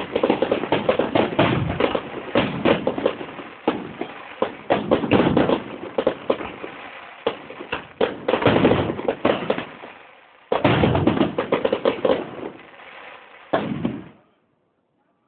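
Fireworks display: rapid, dense volleys of bangs and crackling, with a brief lull about ten seconds in, then the sound cuts off abruptly near the end.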